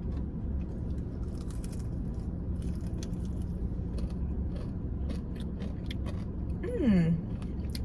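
Someone biting and chewing a fried chicken strip dipped in sauce: scattered short crunches and clicks over a steady low rumble, with a short hummed "mm" near the end.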